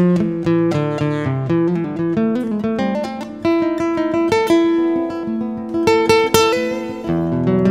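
Guitar music: plucked single notes and chords, one after another, each ringing and fading.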